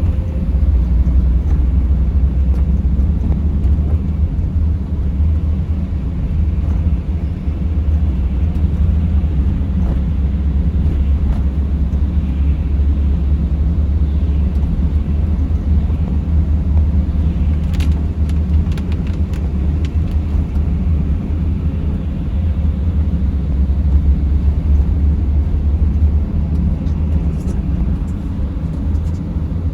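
Steady low road and engine rumble of a car being driven, with a brief cluster of light clicks about two-thirds of the way through.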